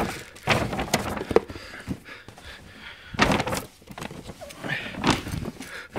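Rustling and bumping from a handheld camera being jostled and moved about, in several irregular bursts.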